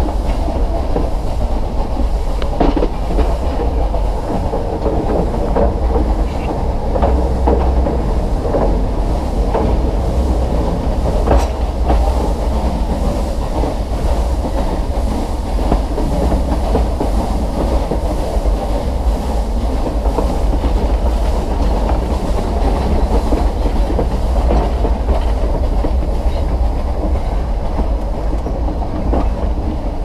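Nilgiri Mountain Railway train running along the metre-gauge track, heard from its open front car: a steady low rumble with a few scattered clacks from the wheels on the rails.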